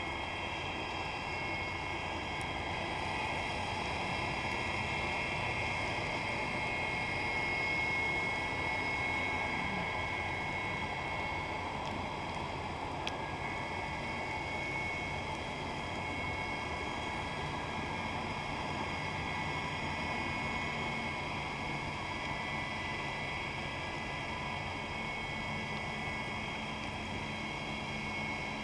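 Underwater ambience: a steady hiss with faint humming tones of a distant boat engine carried through the water, the low hum growing a little clearer in the second half.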